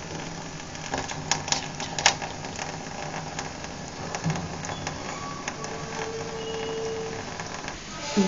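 Light clicks and clinks of steel cooking vessels being handled over a stove, over a steady low hiss. A faint steady tone comes in past the middle for about a second and a half.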